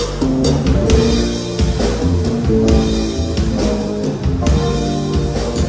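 Live band playing with electric guitar, bass guitar and drum kit, in a steady beat.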